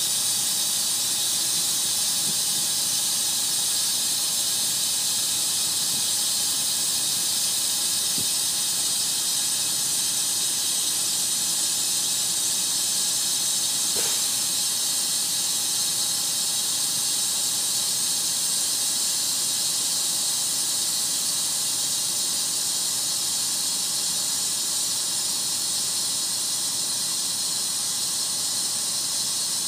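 Compressed air hissing steadily from the air system of a 1996 Ravens end-dump trailer's air-ride suspension, with one faint click about halfway through.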